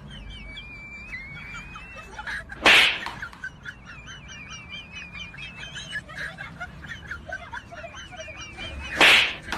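Small birds chirping steadily, cut by two loud, brief bursts of noise, one about three seconds in and one near the end.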